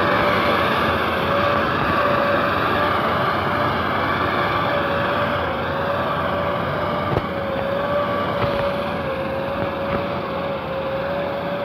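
Articulated two-section tracked all-terrain vehicle driving slowly: steady engine and track noise with a high, slightly wavering whine running through it.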